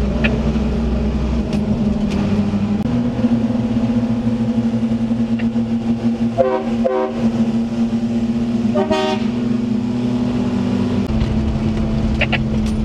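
Cab drone of a Daihatsu Hijet S83P mini-truck's 660cc three-cylinder carbureted engine under way, a steady hum that steps up in pitch about three seconds in and drops again near the end. A couple of short higher-pitched sounds come through around the middle.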